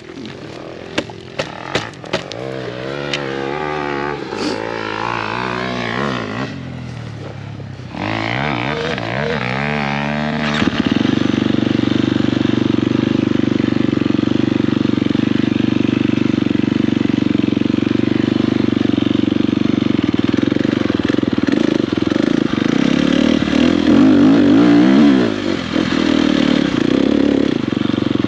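Dirt bike engine under a rider, revving up and falling back through the gears for the first ten seconds or so, then running on at a steady high pitch. It revs higher about 24 seconds in and eases off a moment later. A few sharp clicks come near the start.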